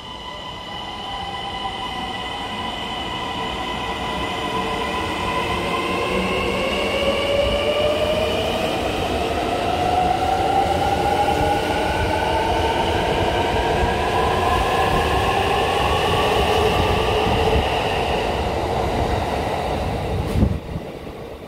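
Kintetsu 80000 series 'Hinotori' limited express departing an underground platform. Its VVVF inverter traction motors give several whining tones that climb steadily in pitch as it accelerates away, over rumbling wheel and rail noise. A single sharp knock comes near the end.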